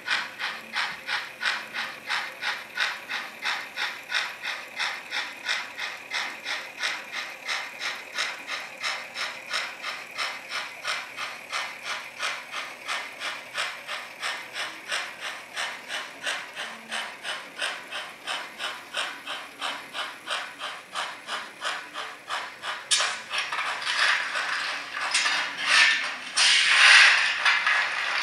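HO scale model steam logging train running across a trestle, making an even, rapid beat of clicks or chuffs about three a second. From about three-quarters of the way in, the beat grows louder and gains a rushing hiss.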